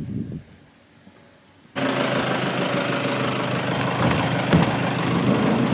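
Car engine idling with a steady low hum, cutting in abruptly about two seconds in after a brief quiet stretch, with a couple of faint knocks.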